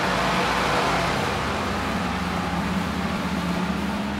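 Hot-air nozzle of a BGA rework station blowing steadily onto a laptop motherboard's chip: a steady rushing hiss with a low hum beneath, as the chip is heated for reballing.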